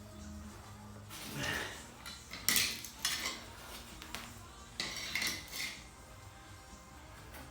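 Three short bursts of harsh metallic clattering and scraping, metal parts knocking together, each lasting about a second.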